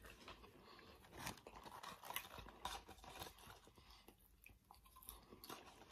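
Faint chewing of a stacked meat sandwich, with irregular soft clicks and crunches of mouth and bread.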